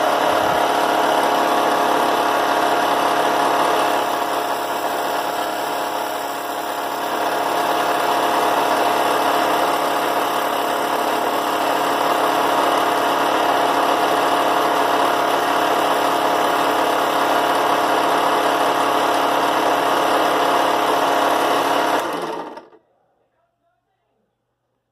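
Cheap benchtop drill press running steadily, spinning a small diamond wheel against a carbide end mill to sharpen its cutting edges. The sound dips for a couple of seconds about four seconds in and stops abruptly near the end.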